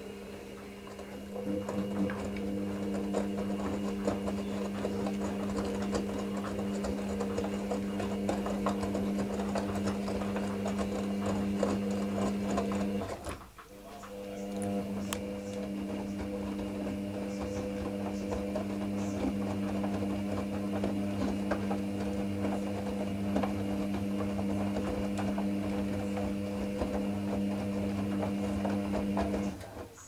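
Hoover Nextra front-loading washing machine in its wash phase, its drum motor turning a wet load of towels with a steady hum and the patter of the tumbling, dripping load. The motor stops about halfway through and is silent for about a second, then starts again, as the drum pauses between turns. It stops again near the end.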